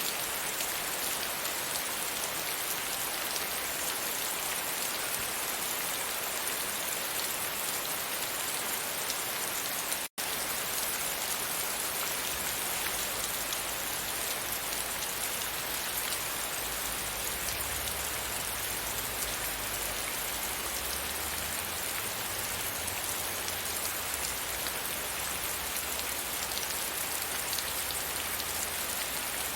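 Steady rain falling against a window pane, a dense even hiss. About ten seconds in it cuts out for a split second, and from a little later a low rumble sits beneath the rain.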